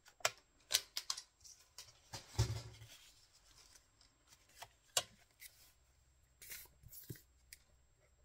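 Handling sounds from a plastic paper trimmer and cut paper on a cutting mat: scattered clicks and paper rustles, with a louder scrape and thump a little over two seconds in and a single sharp click near the middle.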